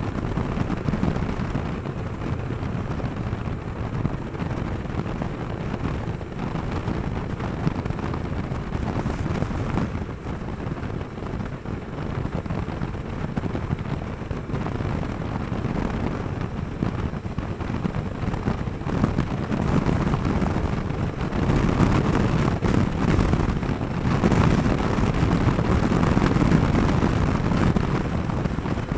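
Kawasaki Versys 650's parallel-twin engine running at road speed under a rush of wind noise on the bike-mounted camera's microphone, growing louder about two-thirds of the way through.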